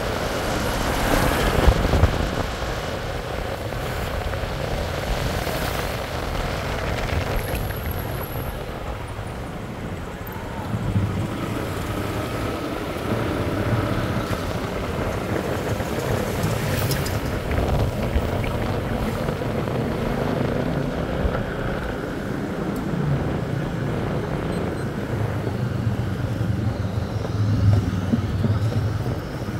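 Street traffic noise, with vehicle engines running past about a third of the way in and again near the end.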